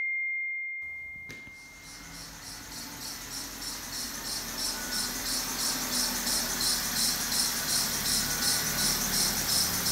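BMW N52 inline-six running as the car pulls in, with a nasty high-pitched squeak from the front-end accessory belt drive that pulses several times a second and grows louder as the car comes closer. The squeak comes from worn pulleys and the drive belt. A fading chime tone is heard in the first second or two.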